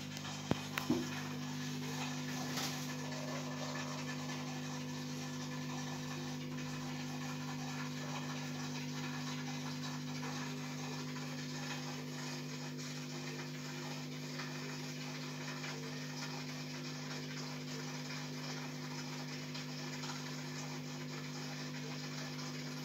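Aquarium equipment running with a steady low hum and a light, even hiss, with two brief clicks just under a second in.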